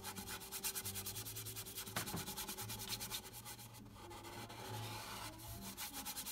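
A big paintbrush scrubbing oil paint onto a white painting surface, many quick back-and-forth strokes a second, with a brief pause about four seconds in.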